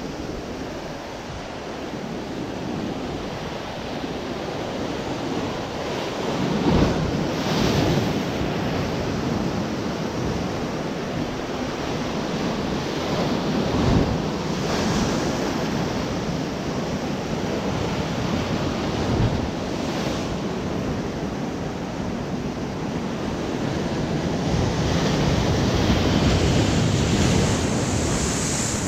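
Surf breaking and washing over a rocky shore, a continuous rush that swells louder several times, most of all near the end, with wind buffeting the microphone.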